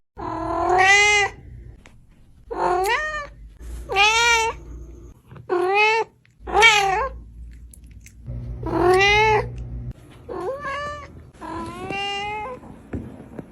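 Domestic cat meowing repeatedly, about eight separate meows, each rising then falling in pitch.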